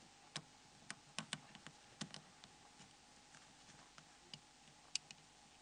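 Faint, sharp clicks and taps at irregular intervals, a few close together just after a second in and one louder click near the end: a DC plug and small parts being worked against a Nokia N73's plastic back cover to release the DC jack.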